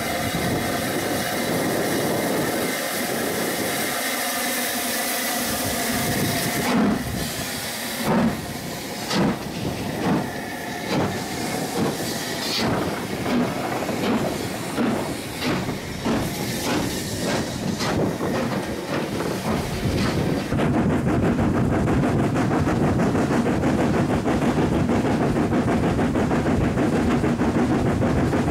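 Southern Railway S15-class steam locomotive No. 847: a steady hiss of steam at rest, then sharp exhaust chuffs about a second apart as it starts away, coming gradually faster. About two-thirds through, a continuous loud rush of the engine running along the line takes over.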